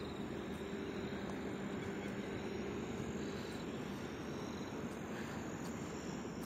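Steady outdoor background noise: an even low rumble with a faint hum, and a brief faint high chirp about three seconds in.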